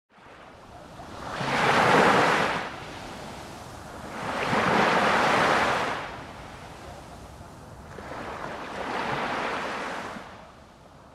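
Sea surf washing in among the rocks at a sea-cave mouth, three swells of waves a few seconds apart, fading away near the end.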